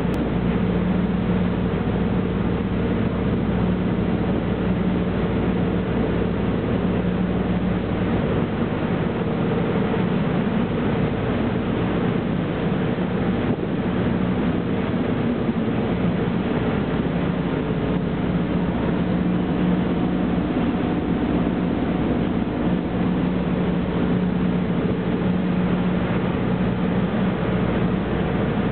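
A catamaran's engines drone steadily under way, holding a constant hum, over the rushing of its churning wake.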